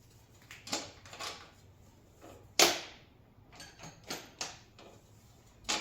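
Irregular metallic clicks and knocks of hand tools, sockets or a wrench being fitted onto small steel nuts on a coffee-maker burner, about eight separate clicks with the sharpest one about two and a half seconds in and another near the end.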